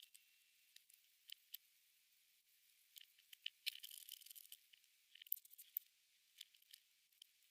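Faint, scattered small clicks and scratchy rustles, thickest about three to four seconds in and again a little after five seconds, over near silence.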